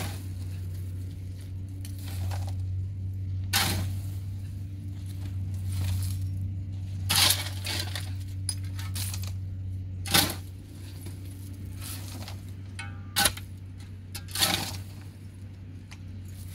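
Hard objects clinking and knocking, several separate sharp strikes a few seconds apart, over a steady low hum.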